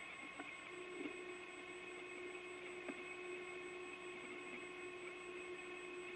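Open space-to-ground radio channel: a steady hiss with faint hum tones. A low steady tone comes in about a second in, and there are a few faint clicks.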